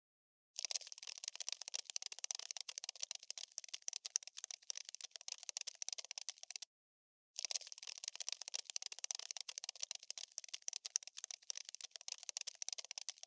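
Cockroach scuttling sound effect: rapid, dense skittering and scratching clicks in long bouts, broken by a short silent gap just after the start and another about halfway through.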